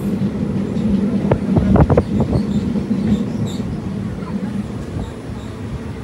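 Passenger train running, heard from aboard: a steady low rumble of wheels on the track, with a quick run of sharp clacks from about one to two seconds in.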